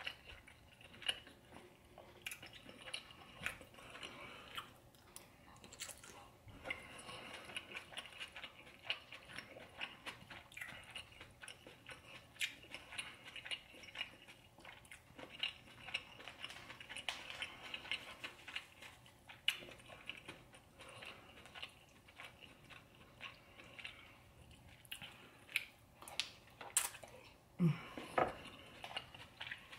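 Close-miked chewing of seafood-boil food, a steady run of wet mouth sounds and small irregular clicks.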